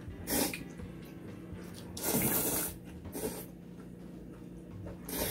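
People slurping cold noodles and drinking the broth straight from the bowl: several short wet slurps, the longest and loudest about two seconds in.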